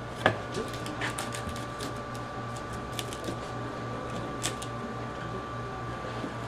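A long knife working through a giant bluefin tuna's flesh along the bone, with scattered sharp clicks and knocks of the blade, the loudest about a third of a second in, over a steady hum.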